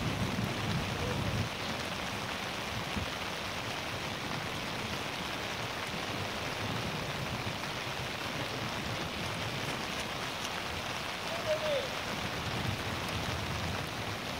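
Steady hiss of rain, with a low rumble in the first second or so and a short, falling squeak about eleven seconds in.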